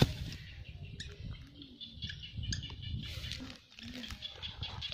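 Digging in wet soil with a hand tool: uneven soft thuds and scraping of earth, with birds chirping in the background.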